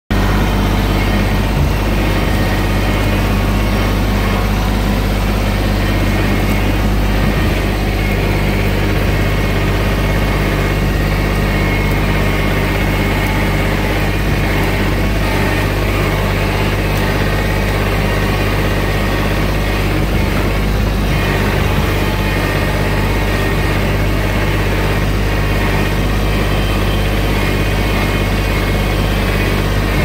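Kubota compact tractor's diesel engine running at a steady pace as the tractor drives, heard from the operator's seat.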